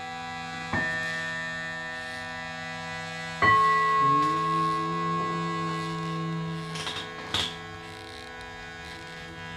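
Shruti box droning: several reeds hold steady tones together. Two sudden attacks, about a second in and again about three and a half seconds in, bring in new high tones that ring on. A few short clicks come near the end.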